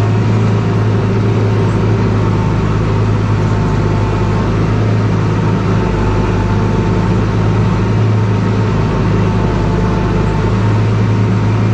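Tractor engine running steadily under load, heard from inside the cab, driving a feeder wagon as it unloads feed: a loud, even drone with a strong low hum.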